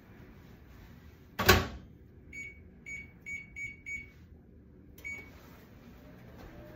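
Microwave oven door shut with a thud, then five short keypad beeps as the cooking time is punched in, and one more beep about a second later as it is started.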